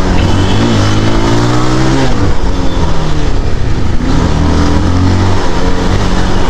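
Bajaj Pulsar 220F's single-cylinder engine running under a riding load, rising in pitch over the first two seconds as the throttle opens, dropping back, then running fairly steadily.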